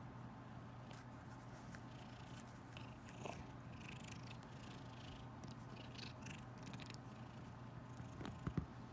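Domestic cat purring steadily, close up. Soft rustling comes through in the middle, and a few soft thumps near the end.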